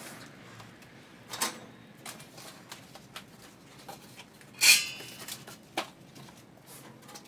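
Handling noises from unpacking a pellet grill: scattered light knocks and clicks, with one louder clatter about four and a half seconds in.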